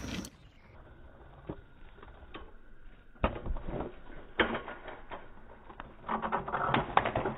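A kick scooter rattling over asphalt and clattering as the rider falls off, in irregular bursts of rapid clicks and knocks. The loudest bursts come about three seconds in and again near the end.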